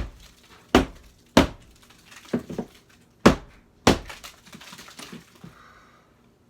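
A hammer striking a drywall ceiling: a series of sharp knocks, about six in four seconds, followed by a softer rustling noise that fades out about two seconds after the last blow.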